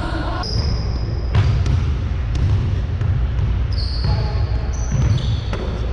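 Basketball bouncing on a hardwood gym floor, with sneakers squeaking on the court several times in short, high squeaks.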